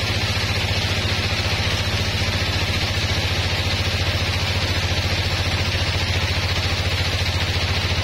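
Sawmill band saw running steadily while a rosewood board is fed through it, a low machine hum under a constant high hiss from the blade cutting.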